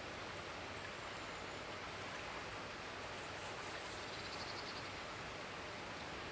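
Steady outdoor background noise by a river, an even hiss with no clear single source, with a faint high-pitched trill briefly about four seconds in.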